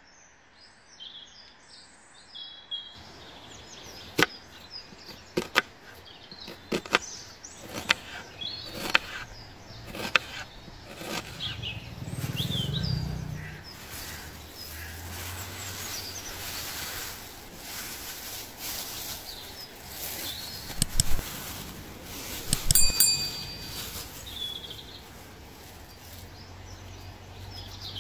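Raw ground beef worked by hand on a wooden cutting board: a series of sharp knocks and taps on the board, with a louder cluster a little over twenty seconds in. Birds chirp throughout.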